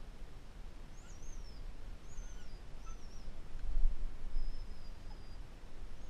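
Wind gusting on the microphone, with small birds giving four or five thin, high whistling calls, some sliding down in pitch.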